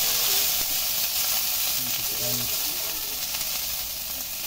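Food sizzling as it fries in hot oil in a wok, the sizzle slowly easing off.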